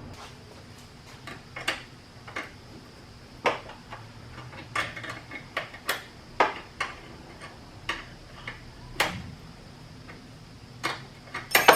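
Scattered light metallic clicks and clinks of hand tools and hardware being handled while an oil catch can is refitted, irregularly spaced, with a quick cluster of louder clicks near the end.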